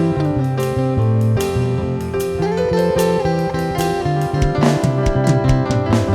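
Afro-soul band playing live: guitar over bass and drum kit, with a steady beat of drum strokes.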